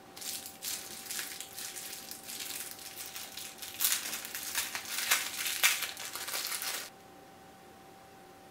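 Thin clear plastic wrapper crinkling as it is peeled off a small mochi squishy toy. The crackles grow louder about four seconds in and stop abruptly about seven seconds in.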